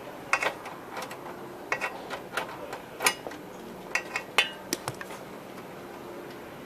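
Metal hand tools clinking and knocking against metal parts, about a dozen sharp clinks in uneven clusters that stop about five seconds in. This is typical of wrench and socket work on the bolts of the old compressor's mounting.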